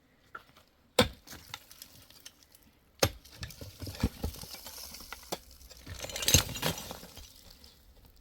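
Hard objects knocking and clinking: sharp knocks about a second in and at three seconds, smaller clicks after, and a stretch of rustling with another loud knock around six seconds.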